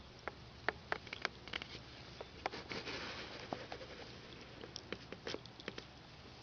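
Thai Ridgeback dog chewing and gnawing a plush toy: irregular small clicks and snaps of teeth and jaw, with a brief rustle in the middle.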